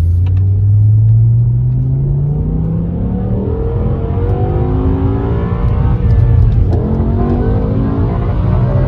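BMW S85 V10 engine accelerating hard, its note climbing steadily in pitch over the first few seconds, then dropping back and climbing again a few times.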